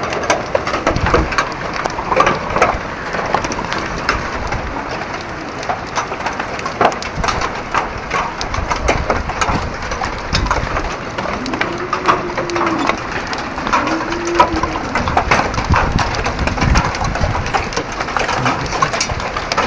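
Heavy hail pelting down: a dense, uneven patter of sharp impacts of large hailstones. About twelve and fourteen seconds in come two low hoots that rise and fall.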